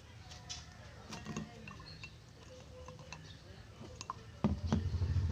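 Faint small clicks and clinks of containers and utensils being handled while making slime, then a loud low rumbling starts about four and a half seconds in.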